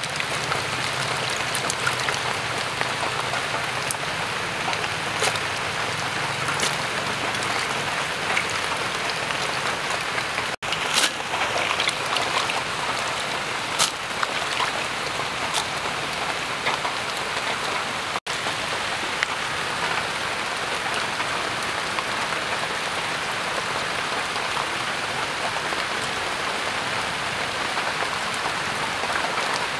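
Steady patter and hiss of falling water, like rain, with a few sharp clicks and two brief dropouts.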